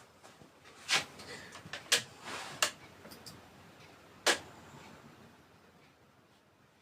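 A few sharp knocks and clicks, the loudest about a second in, about two seconds in, and just past four seconds in, with a short rustle between the second and third.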